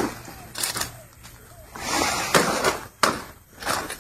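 Banana leaves and stalk pieces rustling as they are gathered up, with a few sharp chops of a bolo knife, about three in all.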